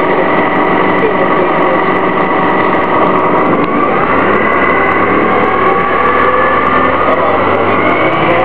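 Orion VII CNG transit bus running, its Detroit Diesel Series 50G natural-gas engine and ZF Ecomat-2 automatic transmission droning steadily, with a whine that climbs slowly in pitch from about halfway through.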